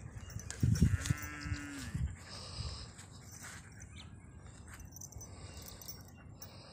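A few low thumps about a second in, then a single animal call held on one pitch for just under a second; faint outdoor background otherwise.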